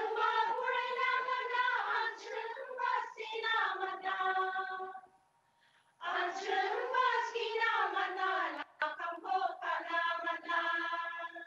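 A group of voices singing a song together in two long phrases with a short break between them. The song's words mean 'hope'.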